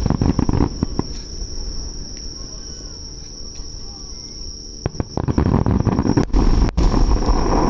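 Fireworks going off: low booms and sharp cracks about a second long at the start, then a longer run of rumbling booms and cracks from about five seconds in. Insects, crickets or similar, keep up a steady high trill underneath throughout.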